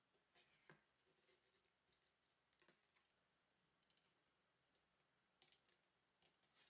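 Near silence with a few faint, scattered small clicks and taps, as from small watch parts and tools being handled on a watchmaker's bench during case assembly.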